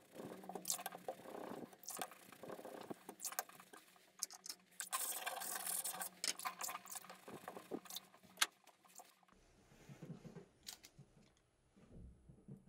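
Faint wet rubbing and scraping on a glass-backed whetstone as a hand and a small dark pad are worked over its wet surface, with scattered sharp clicks. It grows quieter in the last few seconds.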